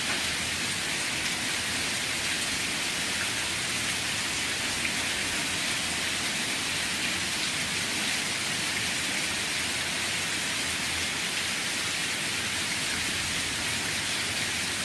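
Steady rain falling, an even hiss of many raindrops with no single drops or thunder standing out.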